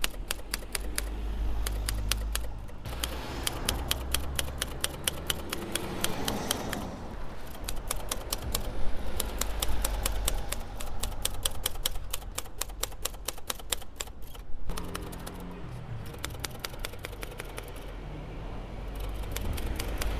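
Manual typewriter keys striking the platen in quick runs of clacks, several a second, broken by short pauses as individual characters are typed to build up a picture.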